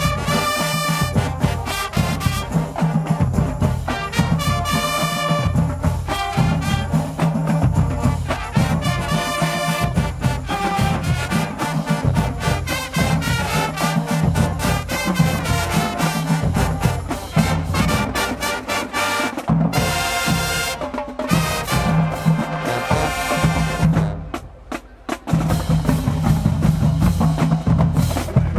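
High school marching band playing, brass horns (trumpets, trombones) over a drumline. The sound breaks off briefly about 24 seconds in, then the full band comes back in.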